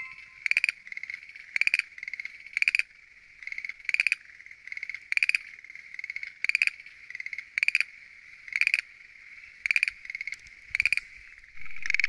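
Schlegel's green tree frog calling with its throat sac swelling: short pulsed trills repeated about once a second, over a steady background trill of a wider frog chorus.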